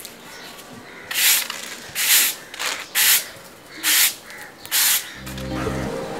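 Long-handled broom sweeping a concrete floor: five short swishing strokes about a second apart. Music with steady low notes comes in near the end.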